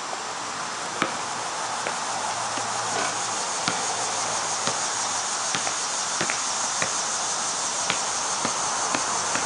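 Basketball bouncing on a concrete court, sharp single knocks at uneven spacing about once a second, over a steady insect chorus from the trees that grows slightly louder.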